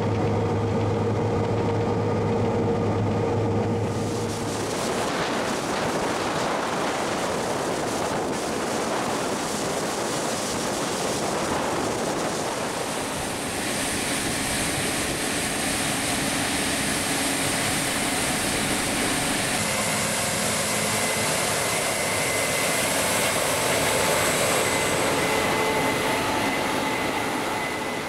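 Case IH 8230 combine harvester with a Shelbourne stripper header running while harvesting wheat, a steady machine din. It starts as a low steady hum and turns to a broader rushing noise about five seconds in, with a high whine added from about fourteen seconds.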